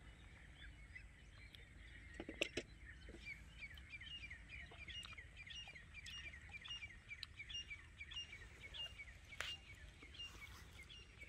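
Faint birdsong: a bird repeats a short chirp about three times a second for several seconds, over a low steady outdoor rumble. A few sharp clicks stand out, the loudest about two and a half seconds in and another near the end.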